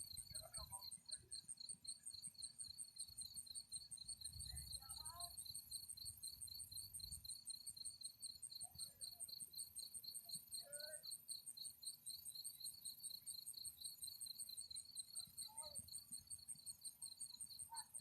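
A cricket chirping: a faint, high, evenly pulsed trill that goes on without a break.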